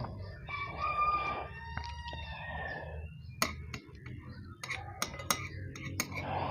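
A rooster crowing for about two and a half seconds, one long call with a few steps in pitch, then scattered sharp clicks of utensils on a bowl during eating.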